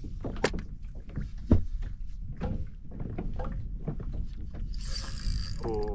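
Knocks, clunks and rattles from a plastic pedal fishing kayak as it is worked through shallow water, over a low rumble of water and hull movement. One sharp knock stands out about a second and a half in.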